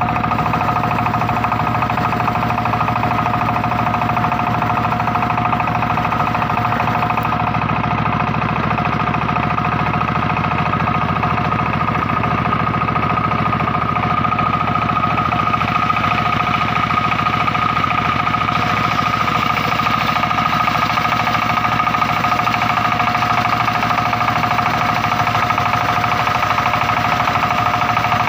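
Circular-saw sawmill machine running with a steady high whine over a low mechanical hum.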